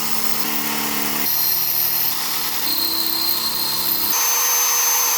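Power drill running under load, drilling into the head of a rounded-off steel bolt to cut the head off. Its motor tone shifts abruptly in steps several times.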